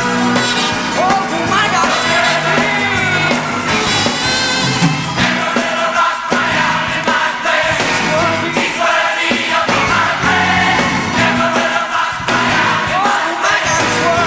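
Live gospel song: choir and congregation voices singing over band accompaniment, with a steady bass line underneath.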